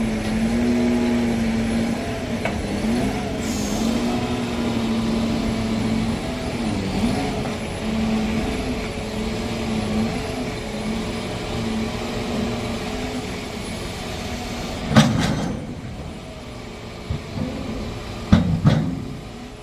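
A vehicle engine running with a steady, slightly wavering hum that fades out about three-quarters of the way through. Loud knocks come about 15 seconds in and twice more near the end.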